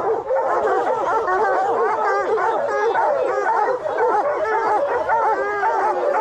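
A pack of bear hounds barking and bawling together, many voices overlapping without a pause: the treeing bark of dogs holding a bear up a tree.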